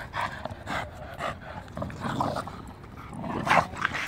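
Two dogs, a Staffordshire bull terrier and an English bulldog, growling and huffing as they tug against each other on a rubber chew toy. The sounds come in uneven bursts, with louder ones about three and a half seconds in.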